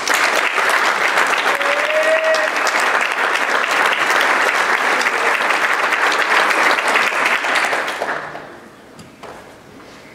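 Audience applauding, a dense, steady clatter of many hands clapping that dies away about eight to nine seconds in.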